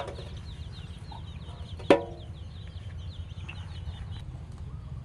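Chickens clucking, with one loud, short cluck about two seconds in. Faint, rapid high chirping runs throughout over a steady low hum.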